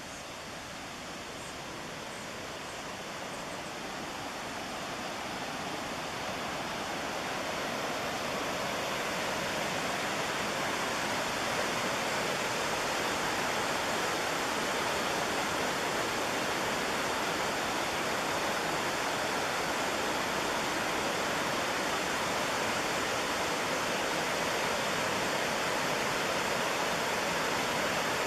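Rushing white water of the McKenzie River, a steady roar that grows louder over the first several seconds and then holds level.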